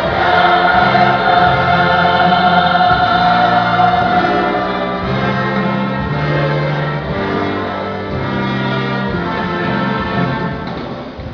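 Youth choir singing a gospel song, with long held notes over a stepping bass line. The music fades down near the end.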